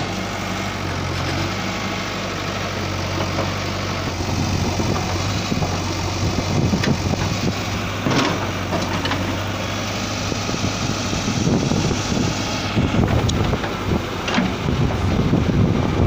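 JCB 3DX backhoe loader's diesel engine running steadily, becoming rougher and louder in the second half as the machine works, with a few short sharp knocks.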